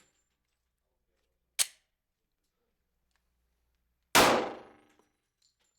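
A single .45 ACP shot from a Glock 36 pistol about four seconds in, its report dying away over about half a second, preceded about a second and a half in by one short sharp clack. The pistol is malfunctioning, which the shooter blames on its newly fitted extended slide stop.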